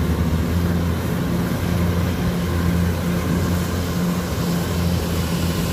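Kubota DC105X combine harvester's diesel engine running steadily under load while harvesting rice, a constant low drone with machinery noise over it.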